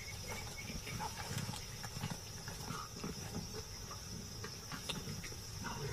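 Steady high chirring of insects, with soft, irregular low grumbling sounds from lions feeding at a kill underneath.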